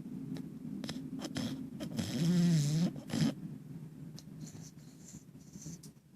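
Sleeping bulldog snoring: a steady low rattling snore with small snuffling clicks, and one louder, wavering pitched snore about two seconds in that lasts about a second.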